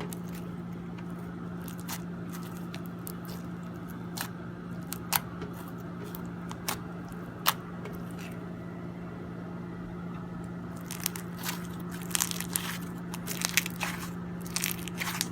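Crunchy slime being squeezed and worked by hand, giving sharp crackles and pops, at first one every second or so, then a quick run of crackles near the end, over a steady low hum.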